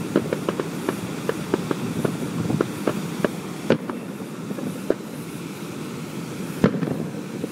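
Fireworks crackling and popping: many quick, irregular cracks for the first few seconds, thinning out, with one sharper crack near the end, over a steady background rush.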